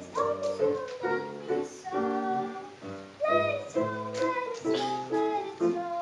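Christmas song performed live on a strummed acoustic guitar, chords struck in a steady rhythm, with a young voice singing along.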